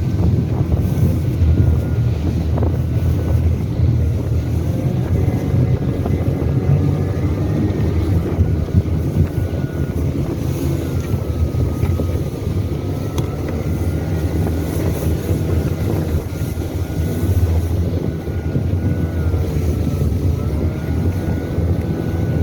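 Snowmobile engine running steadily under way, a low drone with a higher whine that drifts up and down as the speed changes, with wind buffeting the microphone.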